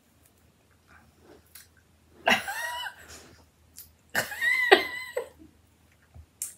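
A woman makes two short wordless vocal sounds, about two seconds apart, each starting sharply and then voiced, a reaction to the sour sherbet powder on a cola lollipop. Faint small mouth clicks from sucking the lollipop come between them.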